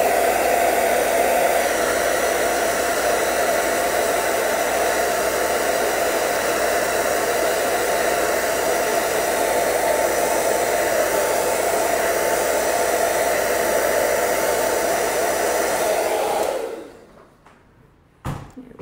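Handheld hair dryer blowing steadily. It is switched off a few seconds before the end and winds down over about a second. A single short knock follows near the end.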